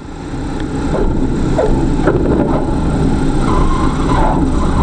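Steady low rumble inside the cabin of a small propeller plane making a forced landing on a highway after an engine failure, building over the first second and then holding loud.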